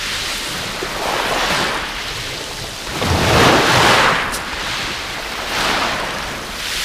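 Sea waves breaking and washing up the shingle beach, a rushing hiss that swells and falls back several times, loudest about three and a half seconds in.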